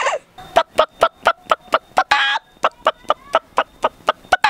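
A boy imitating a horse's hooves with his mouth: a steady run of sharp tongue clicks, about five a second, with a short voiced sound about halfway through.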